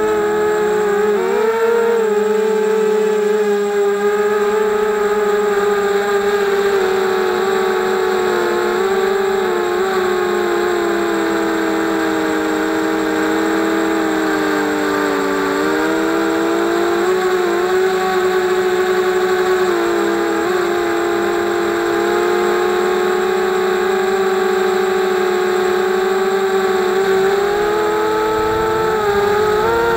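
Quadcopter drone's electric motors and propellers whining steadily in flight, heard from a camera on the drone; several close tones drift up and down together with the throttle, dipping lower about halfway through and rising again near the end.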